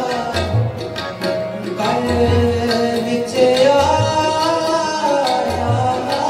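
Sikh shabad kirtan: tabla playing a steady rhythm with deep bass-drum strokes under held harmonium notes and a singing voice.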